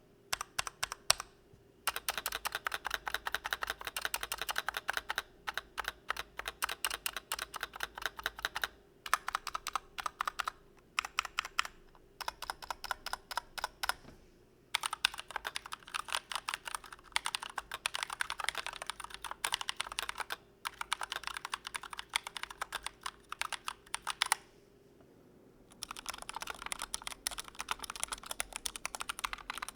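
Typing on a Glorious GMMK Pro 75% mechanical keyboard: rapid runs of keystroke clacks in long bursts with brief gaps, and one pause of about a second and a half near the end.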